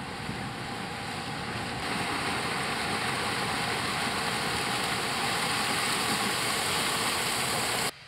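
John Deere combine harvester running as it cuts through standing corn: a dense, steady mix of engine and machinery noise that grows louder about two seconds in, then cuts off suddenly near the end.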